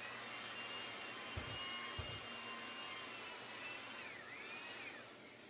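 Belt sander running while sanding a hardwood board, with the steady rush of its dust-extraction vacuum behind it. Its motor whine dips briefly in pitch about four seconds in.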